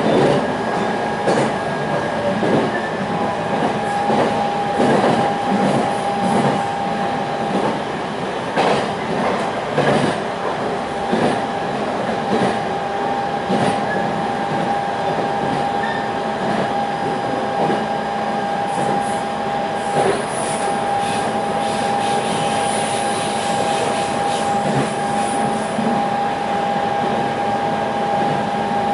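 Electric train heard from inside the carriage while running at speed: a steady rumble with a steady high tone throughout and irregular clicks from the wheels over the track. A faint high squeal comes in about twenty seconds in.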